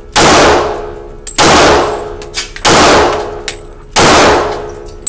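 Gunshots at a shooting range: four loud shots evenly spaced about 1.3 seconds apart, each echoing and ringing out for about a second.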